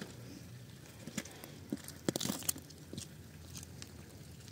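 Footsteps on a gritty concrete slab: scattered crunches and clicks, with a louder crunching scuff about two seconds in.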